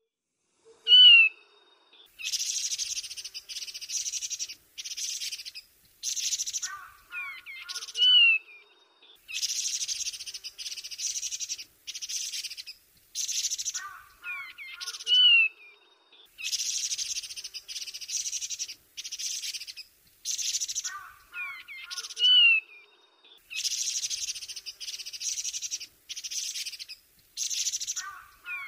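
Taiwan barwing calling: a loud, clear whistled note, then a run of harsh, rasping chatter notes and a short, lower three-note phrase. The same phrase repeats about every seven seconds, four times.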